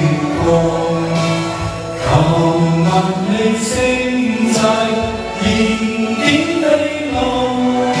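Karaoke music playing with singing in long, held notes that glide between pitches over a full backing track.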